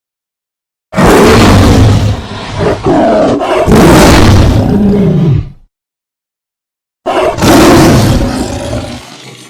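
Big cat roar sound effects, three in a row: two loud roars back to back starting about a second in, then after a gap of dead silence a third that fades out near the end. Each starts abruptly out of complete silence, as edited clips do.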